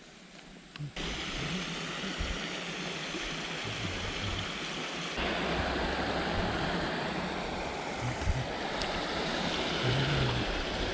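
Steady rush of flowing water, starting abruptly about a second in and getting louder about halfway through.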